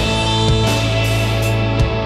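Instrumental background music with guitar.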